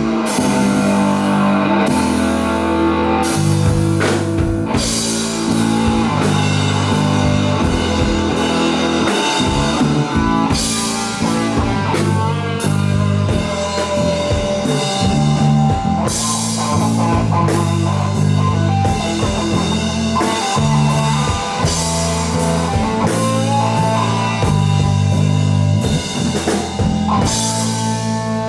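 Live rock band playing an instrumental passage: guitar over a steady bass line and a drum kit with regular cymbal crashes.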